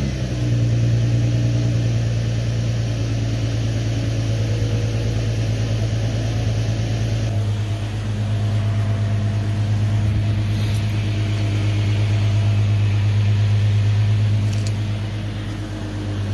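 Infiniti Q70's 3.7-litre VQ37VHR V6, fitted with 2.5-inch cold air intakes, idling steadily just after a cold start.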